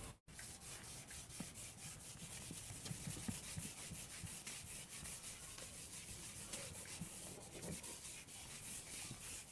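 Faint, irregular scratching and rubbing on a writing surface, a run of many small quick strokes.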